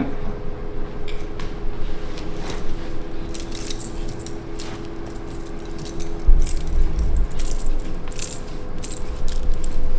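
Hands handling a patient's forearm during a chiropractic elbow and wrist adjustment: light rustling and small clicks over a steady low hum, with a single dull thump about six seconds in.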